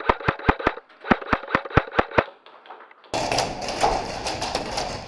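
An airsoft gun firing a rapid string of shots, about five sharp cracks a second, with one short break; it stops a little over two seconds in. About three seconds in, loud rustling and thumping noise starts suddenly.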